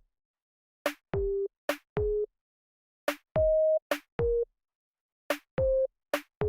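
Electronic pop song intro: drum machine kicks and sharp clicky hits alternate with short, plain synth notes at a few different pitches. Each sound cuts off sharply into full silence before the next, giving a stop-start rhythm.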